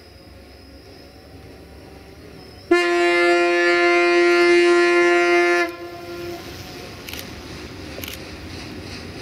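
Horn of a Duewag class 628 diesel multiple unit sounding one long, steady blast of about three seconds, a little under three seconds in. After it the railcar's diesel engine and running noise grow slowly louder as it approaches, with a couple of faint clicks.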